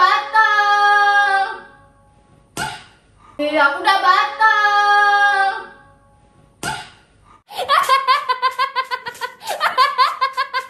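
A voice: two long held notes, nearly identical, each starting on a short rise and about two seconds apart. Then, from about seven seconds in, a run of quick pitched pulses, roughly five a second.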